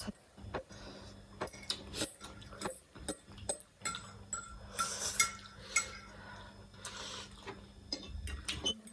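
Eating utensils tapping, clinking and scraping against a bowl of ramen in irregular strokes, some with a short ring, over a faint steady hum.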